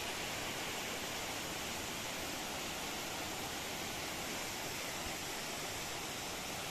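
Steady rush of water running down through loose landslide rock debris, an even hiss with no change.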